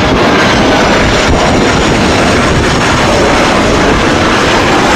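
Airplane engine sound effect: loud, steady engine noise with no break.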